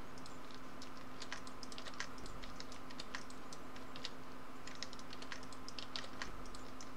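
Computer keyboard keystrokes and mouse clicks from working Blender's shortcuts and menus: irregular light clicks, several a second, over a faint steady hum.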